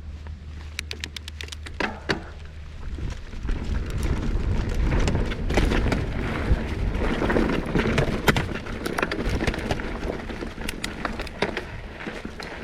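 Mountain bike ridden along a dirt trail: wind buffets the microphone with a low rumble that builds over the first few seconds and then eases, over the crunch of tyres on dirt and stones and many quick clicks and rattles from the bike.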